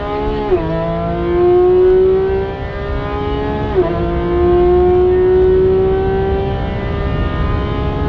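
A tuned 2016 Porsche GT3 RS's naturally aspirated flat-six with an aftermarket exhaust, heard from inside the cabin while accelerating hard. The engine note climbs steadily in each gear, and quick upshifts drop the pitch about half a second in and again just before four seconds.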